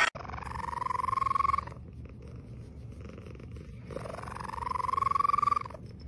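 Scottish Fold cat purring steadily as its chin is rubbed, giving two long, slightly rising mews, one near the start and one about four seconds in.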